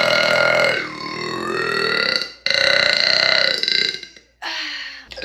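A young woman burping: long, drawn-out belches one after another. One is already going and ends about two seconds in, a second lasts about a second and a half, and a shorter one comes near the end.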